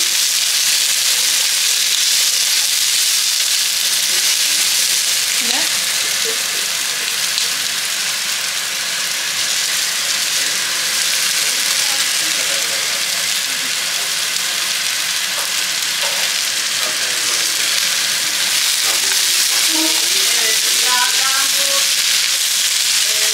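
Vegetables sizzling steadily in a hot pan. Faint voices are talking in the background.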